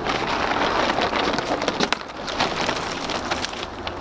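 A camo tarp rustling and crinkling as it is handled and unfolded by hand, a dense run of crackles and crinkles.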